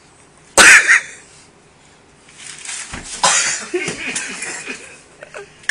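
A man coughing and spluttering, choking on water during a hiccup cure: one loud cough about half a second in, then a longer ragged stretch of coughing from about two and a half seconds in.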